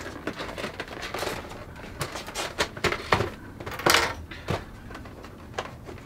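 Plastic retail packaging of a shower head being handled and opened: irregular crackles, clicks and small knocks, the loudest a short crackling rasp about four seconds in.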